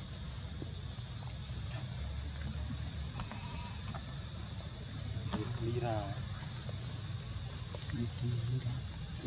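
Steady high-pitched drone of insects, with faint rising chirps repeating about once a second.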